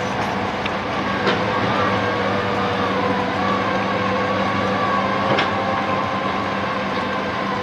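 Sany SR150C hydraulic rotary drilling rig running steadily, its engine drone carrying a wavering high whine, with two sharp knocks, about a second in and again past five seconds.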